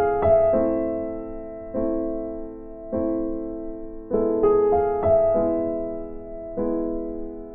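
Slow piano music: chords struck about once a second, each left to ring and fade before the next.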